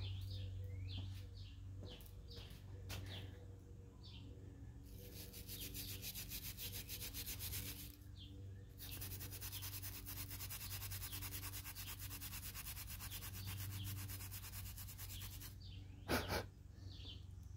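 Hand wire brush scrubbing an old steel punch in fast, even back-and-forth strokes, in two spells with a short break in between. Birds chirp faintly in the first few seconds, and a sharp knock comes near the end.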